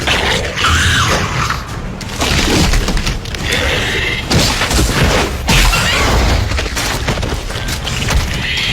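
Film action soundtrack: repeated heavy booms and crashing impacts over music.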